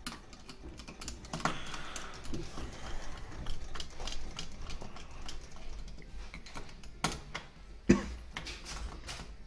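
Irregular small clicks, taps and rustles of hands handling blue plastic pneumatic tubing and push-in fittings on a cigarette machine's solenoid valve block. A sharper knock comes about seven seconds in and the loudest one just before eight seconds.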